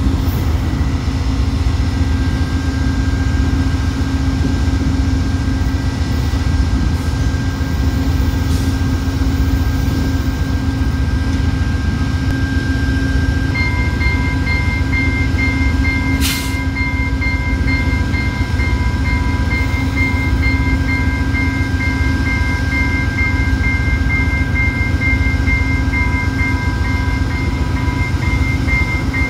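VIA Rail GE P42DC diesel locomotive idling with a steady low hum. About halfway through, a rapid high electronic beeping starts and keeps on, and a single sharp click comes shortly after it begins.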